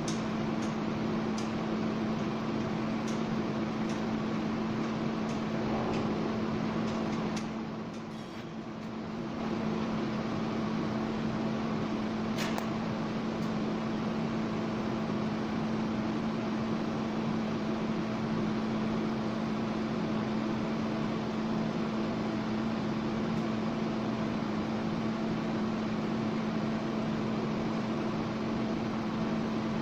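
TIG welding arc on a stainless steel pipe joint: a steady buzzing hum with hiss, dropping away briefly about eight seconds in and then carrying on.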